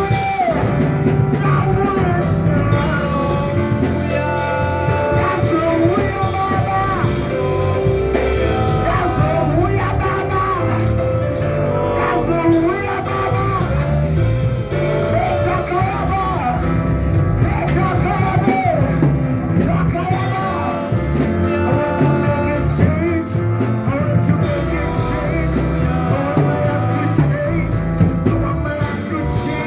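A song: a voice singing over instrumental backing with a steady beat.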